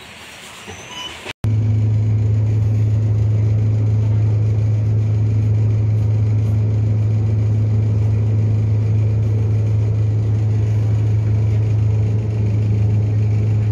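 Bus engine idling, heard inside the cabin as a loud, constant low drone. It cuts in abruptly about a second and a half in, after a brief quieter stretch.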